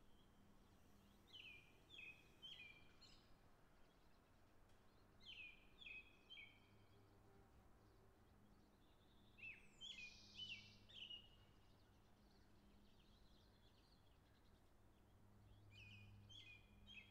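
Faint birdsong: a bird repeating a short phrase of a few quick, descending chirps about every four seconds, over a faint low hum.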